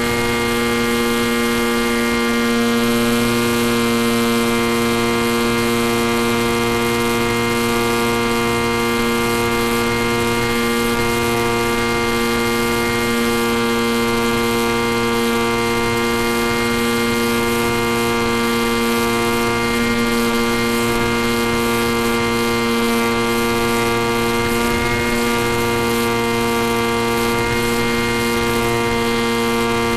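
Electric RC plane's brushless motor and propeller running at a steady cruise throttle, heard through the onboard FPV camera's microphone as an even, unchanging buzzing drone with many overtones.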